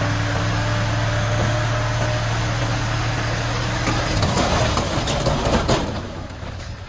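Hoa Mai dump truck's diesel engine running steadily as it drives the hydraulic tipper raising the bed. About four seconds in, the load of soil and broken brick slides out of the bed with a rushing clatter that lasts about two seconds, then the sound falls away.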